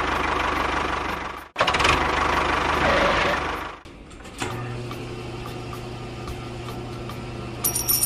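Tractor engine sound running with a low throb, cut off abruptly about a second and a half in and again near four seconds. Then a toggle switch clicks and a small electric motor hums steadily as it tips the toy trolley's dump bed.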